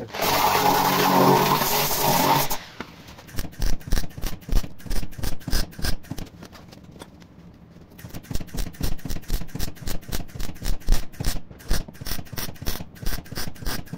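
A grinder with a knotted wire wheel runs steadily for about two and a half seconds, brushing the rusty wheel-arch metal clean. It is followed by welding in short, irregular crackling bursts as the repair panel is tacked onto the car's rear wheel arch, with a pause of about two seconds midway.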